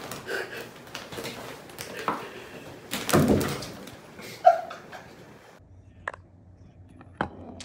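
Plastic shower curtain rustling and its metal rings clattering along the rod as a cat climbs it, with a loud rustling thump about three seconds in. After a break, two sharp clicks.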